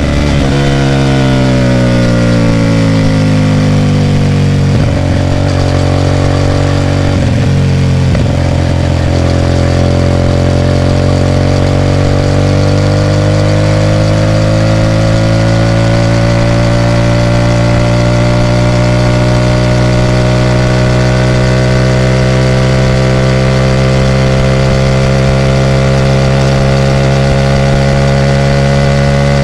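Hyosung GT250R's V-twin engine running through a loud aftermarket exhaust at fairly steady revs. Its pitch falls over the first few seconds, then holds low and creeps up slowly before settling.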